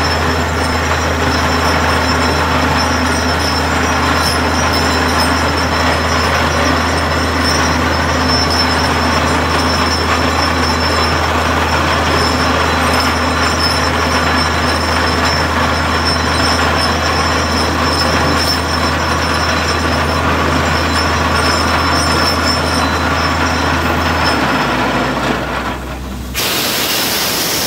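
Borewell drilling rig running under a steady heavy machine drone, with a loud rush of compressed air blowing water out of the bore. This is the sign that the bore has struck a strong flow of water. Near the end the low drone drops away and the sound turns suddenly to a higher hiss.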